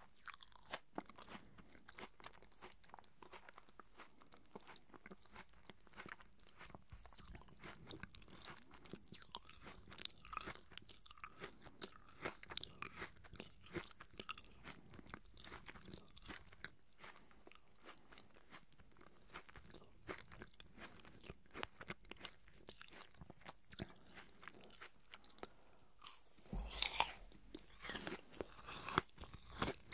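Close-miked chewing of pieces of juicy apple: a steady run of small crisp crunches and wet mouth clicks. Near the end comes a louder stretch of crunching.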